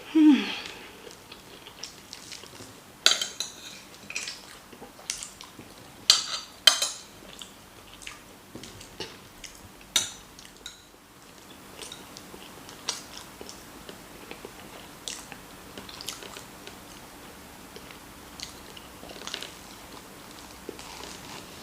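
Close-up eating sounds: chewing, with a spoon or fork clinking and scraping against a plate now and then, loudest in a few sharp clinks in the first half. A short falling voice sound comes right at the start.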